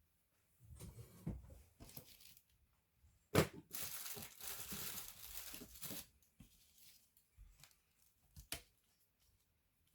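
Handling noises from work on a laptop. A sharp click comes about three and a half seconds in, followed by about two and a half seconds of scratchy rustling, like paper or tape tearing, with a few light knocks before and after.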